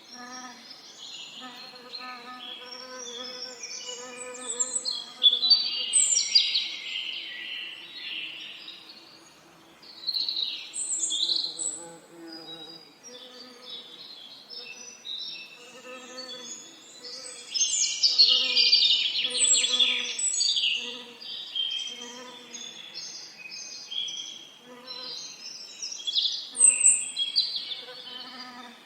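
Birds singing and chirping in overlapping phrases, loudest in bursts about five, eighteen and twenty-six seconds in, over the low buzzing of bees that swells and fades every second or so.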